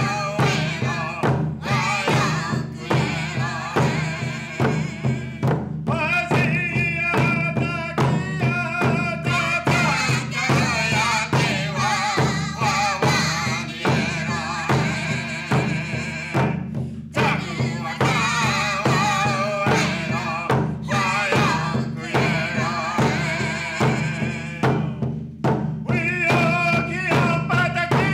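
A small group singing an Indigenous American ceremonial invitational song in unison over a steady drumbeat.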